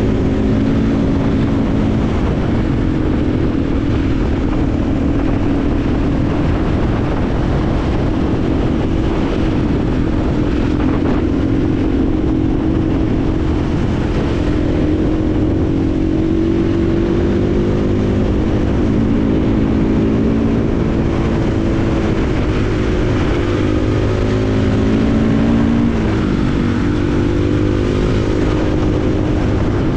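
KTM 500 EXC-F single-cylinder four-stroke dirt bike engine running under way on a trail ride. Its pitch rises and falls gently as the throttle opens and closes.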